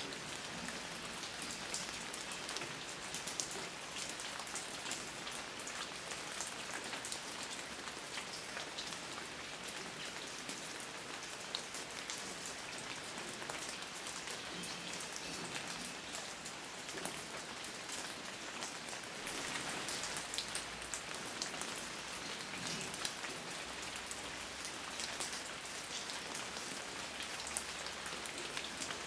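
Steady rain falling on a surface, a continuous hiss full of fine, close drop ticks.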